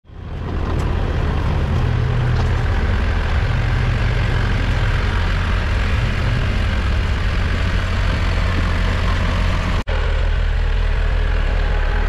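Vehicle engine running steadily under a broad haze of driving and wind noise. About ten seconds in the sound breaks off for an instant, then an engine carries on steadily.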